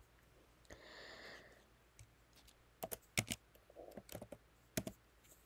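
A few scattered light clicks and taps, with a brief soft rustle about a second in.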